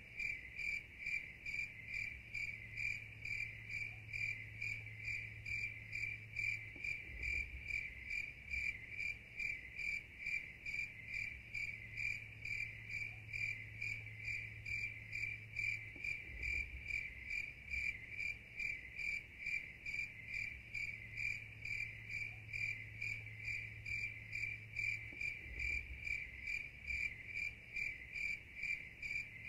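Night insects chirping in a steady rhythm, a high, even chirp repeating about two to three times a second.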